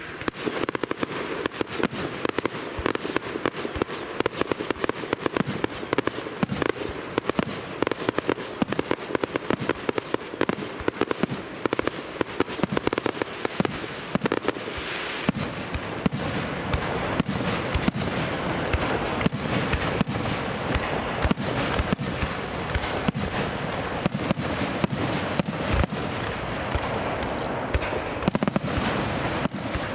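Fireworks display in a rapid barrage: many shell bursts in quick succession over continuous crackling, with no break.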